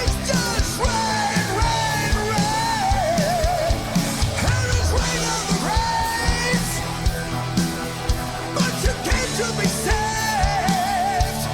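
Heavy rock song playing: a male singer holds long, high notes with a wavering vibrato over a band with a steady drum beat.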